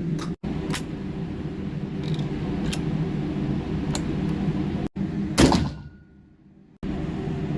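Sharp clicks and knocks from handling the Martini-action shotgun over a steady low noise, then one louder bang about five and a half seconds in that dies away over about half a second.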